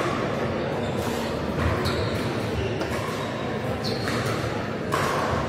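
Pickleball paddles striking the plastic ball during rallies: about five sharp pops, roughly a second apart, over the steady background noise of a large sports hall.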